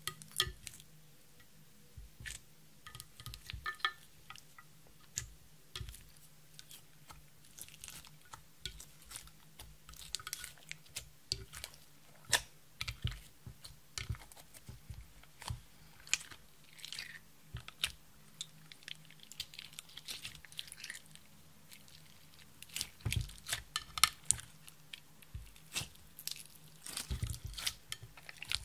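Clear slime being pressed and kneaded by hand with broken lipsticks mixed in: irregular sticky squelches, crackles and small pops, busiest about three quarters of the way through and again near the end.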